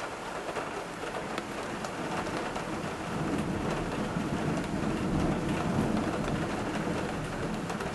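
Heavy thunderstorm rain falling steadily. A low rumble of thunder swells about three seconds in and fades near the end.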